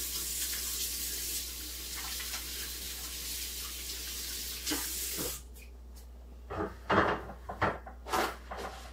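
Kitchen tap running as hands are washed under it, a steady hiss of water that is shut off about five seconds in. After it come a few short knocks and rustles.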